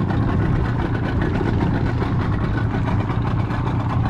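Boat engine running steadily at slow trolling speed: an even low hum with no change in revs.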